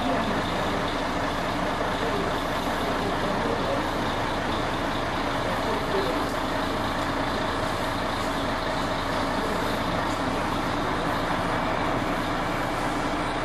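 Steady, unchanging noise of a running Mercedes-Benz truck, which is noisy, together with the hiss of an oxy-acetylene gas welding torch flame working on a steel fuel tank.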